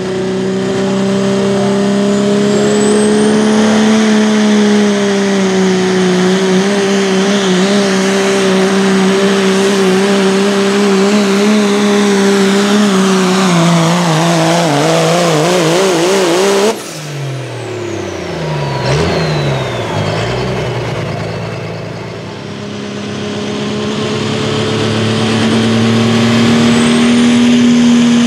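Diesel pickup engines at full power pulling a weight-transfer sled. The first holds a loud, steady high drone that starts to waver and sag in pitch as it loads down, then breaks off abruptly. A second diesel pickup's engine then climbs back to a steady high drone on its own pull.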